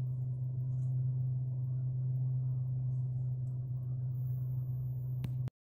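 Steady low drone of a moving vehicle's engine and road rumble, heard from inside the cabin. A short click comes just before the sound cuts off suddenly near the end.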